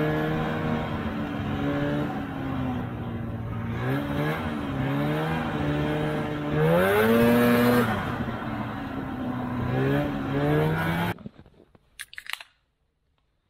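Polaris TX340's two-stroke engine, freshly rebuilt with new rings and a honed cylinder, running under way on the snowmobile, its note rising and falling with the throttle and climbing sharply about two-thirds in. It cuts off suddenly near the end, followed by a brief crack and hiss of a drink can being opened.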